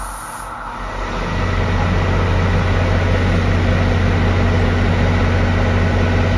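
Diesel locomotive engine running at a standstill, a steady low drone that grows louder about a second in and then holds.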